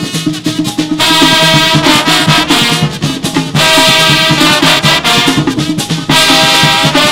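Brass band playing. Sustained brass chords come in about a second in, over a steady drum and percussion rhythm that includes a hand-held iron bell struck with a stick.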